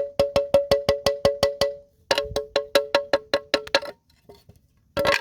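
Wire brush scrubbing quickly across a cast aluminum mailbox door, about six strokes a second in two runs. Each stroke sets the metal ringing at two close pitches like a small bell.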